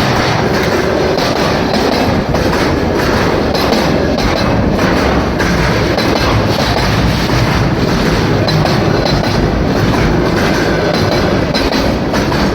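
Freight train cars rolling past, their wheels clattering steadily over the rail joints in an unbroken run.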